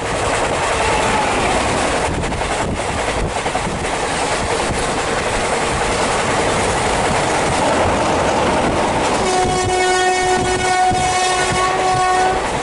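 Passenger train running at speed, heard from an open coach window, with steady rushing wheel noise as a goods train passes on the next track. About nine seconds in, the hauling WAP-4 electric locomotive's horn sounds one long steady blast that cuts off near the end.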